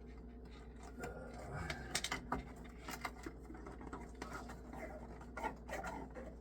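Hand handling noise: scattered clicks, taps and scratching from working cable and zip ties by hand, over a steady low hum.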